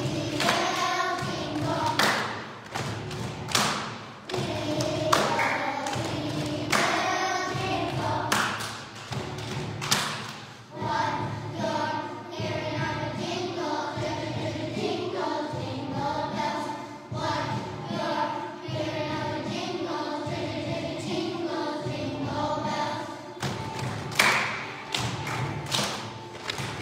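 A song with a choir singing, over repeated thuds, with a quicker cluster of thuds near the end.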